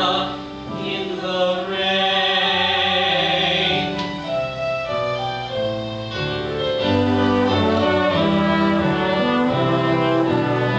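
Orchestral music with bowed strings and sung voices: the closing bars of a musical-theatre duet.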